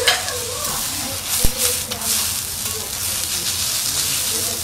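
Fried rice sizzling on a steel teppan griddle while metal spatulas chop and scrape through it. A sharp metal clack on the griddle, about a second and a half in, is the loudest sound.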